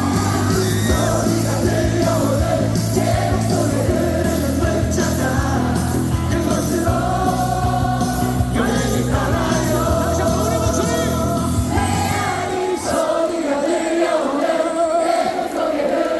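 Stadium crowd of thousands of baseball fans singing a cheer song in unison over loud amplified music with a heavy bass beat; the bass drops out near the end, leaving the massed singing.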